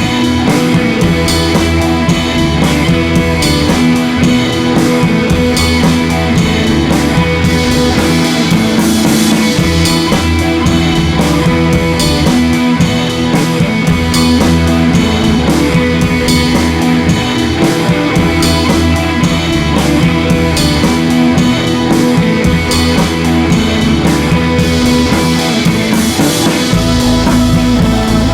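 Background music: rock-style instrumental with guitar and a steady drum beat.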